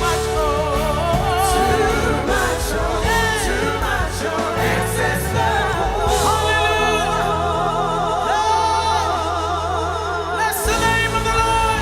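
Gospel choir singing held, wavering notes with heavy vibrato over sustained bass and keyboard accompaniment. The music changes abruptly about ten and a half seconds in.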